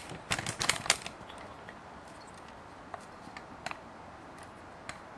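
Handling noise: a quick run of clicks and rustles in the first second, then a few faint isolated ticks over quiet room tone.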